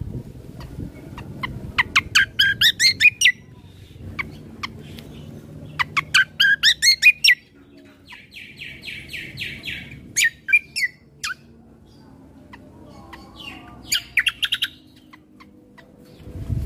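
Kecial kombo (cucak kombo) singing in loud bursts of rapid, sweeping chirps, each burst about a second and a half long, with a buzzy trill in the middle and shorter phrases toward the end. A faint low rumble runs underneath.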